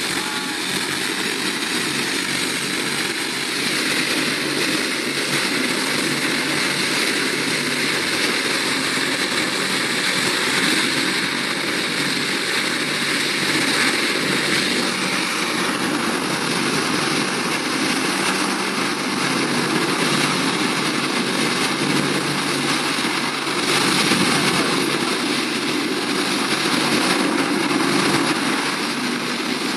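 Zubr-class air-cushion landing craft running close by: its gas turbines, lift fans and three large ducted propellers make a loud, steady rushing drone as it turns at the water's edge and pulls away from the beach.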